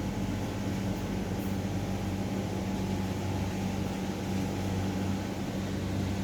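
A steady machine hum, an unchanging low drone with an even hiss over it.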